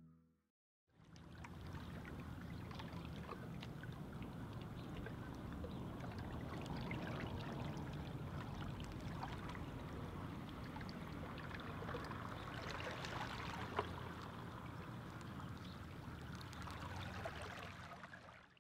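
Calm sea water lapping and trickling, a steady soft wash with small splashes, starting about a second in. One sharper splash stands out about two-thirds of the way through.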